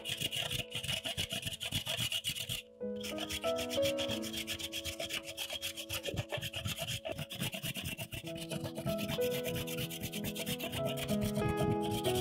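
A bar of white chocolate rasped back and forth on a flat metal hand grater, making quick repeated scraping strokes over soft background music.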